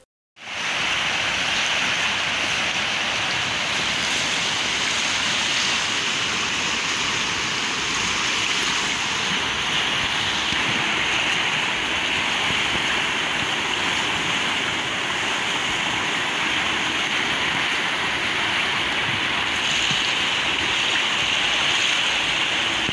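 Steady rush of the Cumbaza River in flood, fast, muddy water running high after hours of heavy rain. It starts about half a second in.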